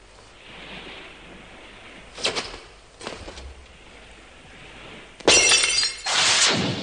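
Cartoon sound effects: two short knocks, then glass shattering loudly about five seconds in, followed by liquid splashing out as a bottle is poured.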